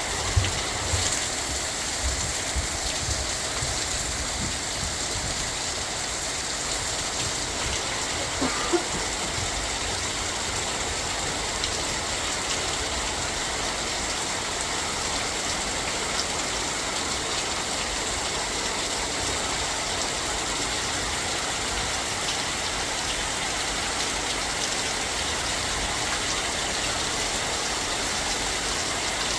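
Heavy rain pouring down steadily, an even, unbroken hiss of a downpour.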